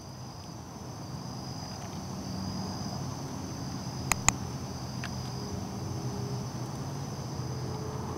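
Crickets trilling steadily at night, under the low rumble of a passing airplane that grows louder from about two seconds in. Two sharp clicks come a little after the middle.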